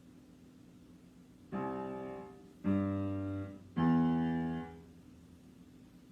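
Three separate notes played on a piano-type keyboard, each struck and held for about a second before being released, the second and third louder than the first.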